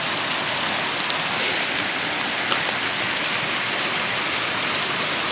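Mountain stream rushing over rocks: a steady hiss of running water, with a single small tick about two and a half seconds in.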